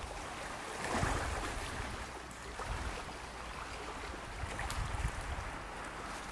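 Steady wind and lake water washing on the shore, with wind rumbling on the microphone and a swell about a second in.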